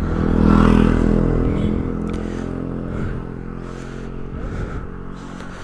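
A motor vehicle's engine running, loudest about half a second in and fading away over the next few seconds.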